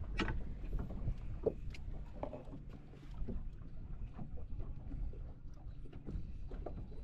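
Yamaha 115 outboard running slowly at trolling speed, a steady low drone, with water against the hull and a few light clicks and knocks.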